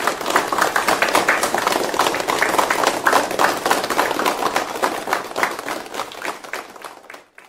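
Applause: a dense patter of many hands clapping that fades out near the end.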